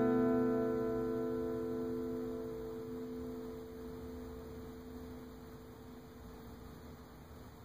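A held acoustic guitar chord ringing out and slowly dying away to a faint hum.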